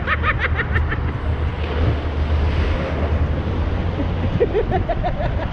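Wind buffeting the microphone over a steady rush of water, with high-pitched voices in the first second and voices again near the end.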